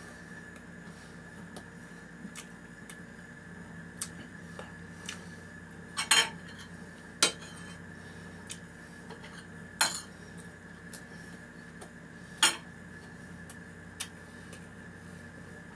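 Spoon and fork clinking and scraping on a dinner plate while eating, with about half a dozen sharp clinks spread through, over a steady background hum.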